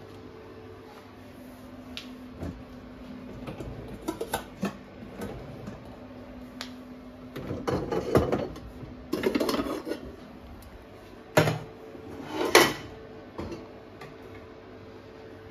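A kitchen pan drawer is pulled open and pots and lids are rummaged and clattered as a stainless steel pot with its lid is taken out. Two sharp metal clanks come near the end.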